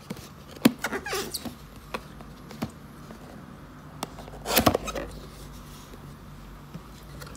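Cardboard reel box being opened by hand: scraping and tapping of cardboard with a few sharp clicks in the first three seconds, then a louder rustle of flaps and packaging about four and a half seconds in.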